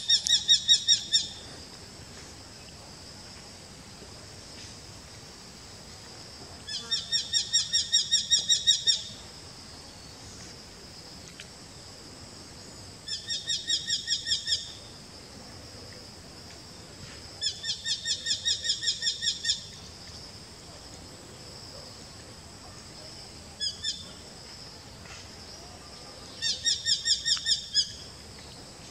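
Eurasian hobby calling: six bouts of rapid, sharp repeated 'kew' notes, each note dropping slightly in pitch. Most bouts last one to two seconds and come several seconds apart; one, a little past the middle, is only two notes.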